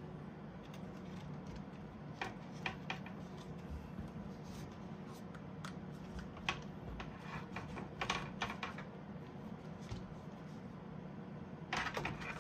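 Scattered small clicks and taps of hands handling a plastic mini RC drift truck while feeling for its power switch, with a cluster of clicks near the end, over a steady low hum.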